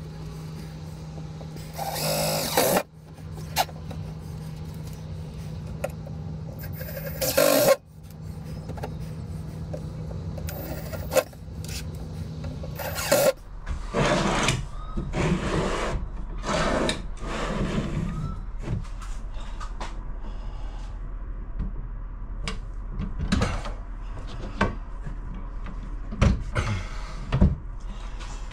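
Cordless drill driving screws into metal drawer slides in three short bursts, about 2, 7.5 and 13 seconds in, over a steady low hum. After that come a run of knocks, scrapes and rattles as the slides and a wooden board are fitted.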